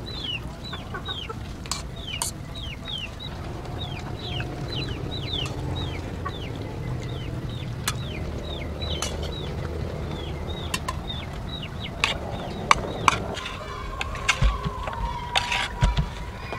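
Chickens clucking and peeping: a quick run of short, high, falling calls, about two or three a second, for most of the first ten seconds. Near the end, a few sharp knocks come in.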